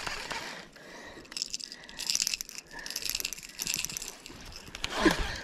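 Fishing reel cranked in several short bursts with pauses between them, as a topwater walking bait is worked. Near the end comes a brief, louder sound falling in pitch.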